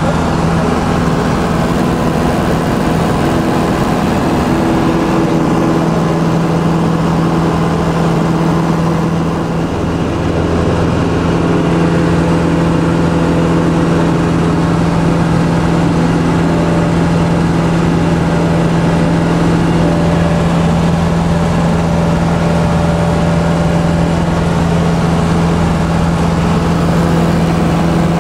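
Robin DR400 light aircraft's piston engine and propeller running steadily at a constant pitch, heard from inside the cabin as the plane climbs away just after takeoff.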